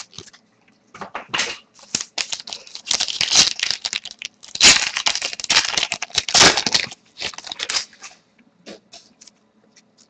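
A 2010-11 Panini Zenith hockey card pack being torn open, its wrapper tearing and crinkling in a string of rustling bursts that are loudest in the middle and die away about two seconds before the end.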